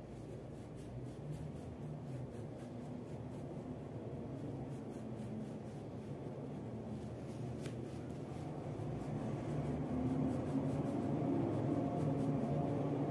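Wax crayon rubbing back and forth on paper in a run of quick scratchy strokes. A low hum underneath grows louder over the second half.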